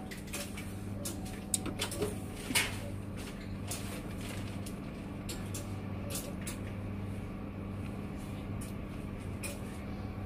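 A semi-automatic biochemistry analyzer being powered on: a cluster of clicks and knocks in the first three seconds as its power switch is worked and it starts up, the loudest about two and a half seconds in, then scattered faint ticks over a steady low hum.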